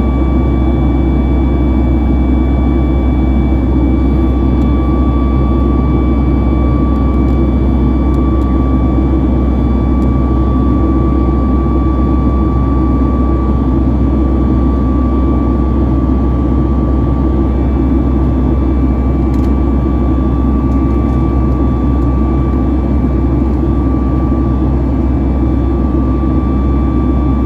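Boeing 737 MAX 8's CFM LEAP-1B turbofan engines running at climb power, heard from inside the cabin. It is a steady, loud rumble and rush of air with a thin, constant whine from the engine fan on top.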